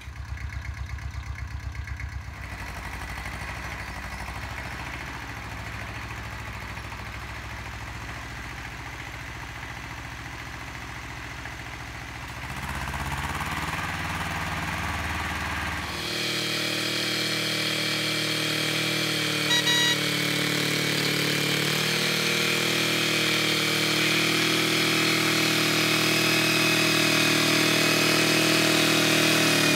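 Iseki compact tractor's diesel engine running steadily under load while its rear rotary tiller works the soil into ridges. It is fainter and more distant at first; a little past halfway it turns abruptly louder and closer, a steady engine drone with several held tones.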